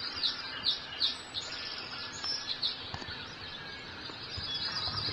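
Bird chirping: a run of short high chirps, about three a second, over a steady hiss, growing fainter after about three seconds.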